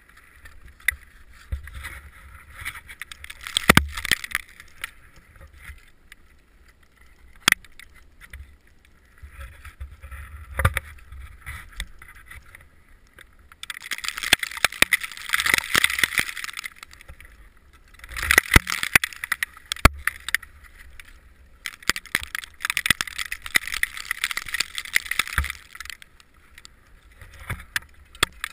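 Ice axe and crampons scraping and striking snow-covered granite during mixed climbing. The scraping comes in stretches of a few seconds, with sharp metallic clicks throughout.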